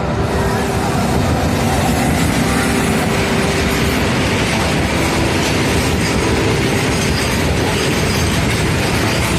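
A freight train of covered wagons behind an electric locomotive runs past at close range. The wheels and wagons make a steady, loud rumble and clatter on the rails.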